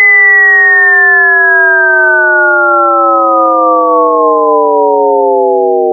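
Mid-range audio test tone: a loud synthesized tone with overtones, gliding slowly and steadily downward in pitch like a falling siren.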